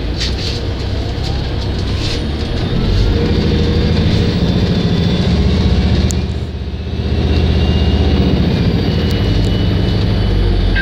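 City bus engine and drivetrain heard from inside the passenger cabin as the bus drives, the engine note building as it pulls away. The sound drops briefly about six and a half seconds in, then builds again.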